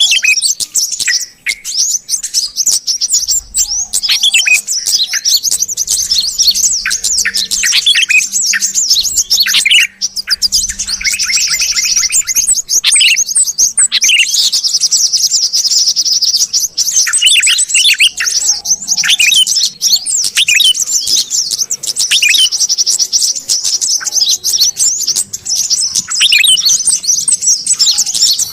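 Bird-lure recording of yellow-vented bulbul (trucuk) and sooty-headed bulbul (kutilang) calling together. Dense, fast, high chirping and trills run throughout, with lower bubbling notes breaking in every few seconds.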